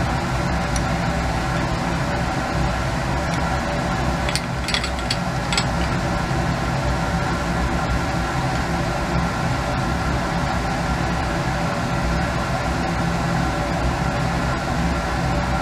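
A steady mechanical hum like a ventilation fan. A few light clicks come about four to five and a half seconds in as the glass separatory funnel and its stopcock are handled.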